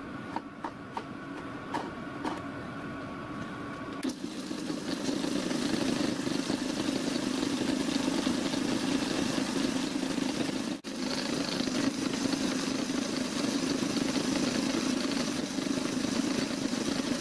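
A few light metallic clicks as a chuck is screwed onto the spindle nose of a small hand-built lathe. About four seconds in the micro lathe starts and runs steadily, its belt-driven spindle spinning the chuck to check whether it runs true.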